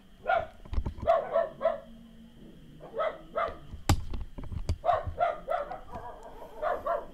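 A dog barking repeatedly in quick runs of three or four short barks, with pauses between the runs. A single sharp click or knock about four seconds in.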